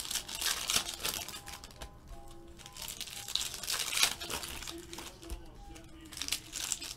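Foil trading-card pack wrappers crinkling as they are torn open and handled, loudest about four seconds in, over quiet background music.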